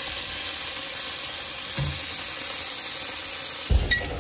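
Herb-marinated fish fillets sizzling steadily in oil in a nonstick frying pan. Near the end the sizzle cuts off suddenly, giving way to a low rumble and a light clink of cutlery on a plate.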